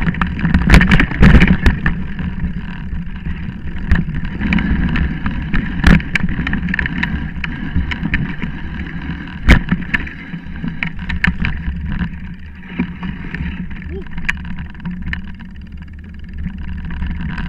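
Mountain bike descending fast over a rough dirt and stone trail, heard through a camera mounted on the bike: a steady rumble of tyres and frame vibration with wind, broken by frequent rattles and sharp knocks as the bike hits bumps. The loudest knocks come about a second in, near six seconds and near nine and a half seconds.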